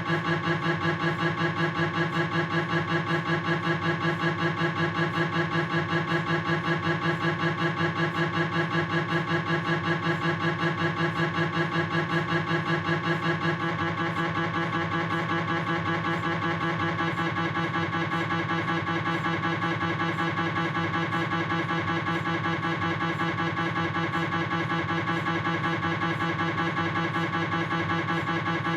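Philips 1.5 T MRI scanner's gradient coils during a proton-density fat-suppressed coronal knee sequence: a steady train of rapid, even pulses made of several held tones. About halfway through, the pulsing drops slightly in level.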